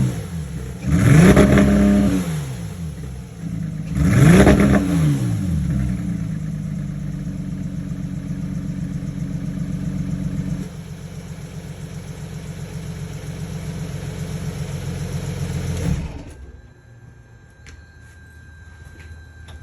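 Porsche 991.1 flat-six engine, running with a cylinder misfire, revved twice, each rev rising and falling back to idle. It then idles steadily, drops to a lower idle about halfway through, and shuts off a few seconds before the end.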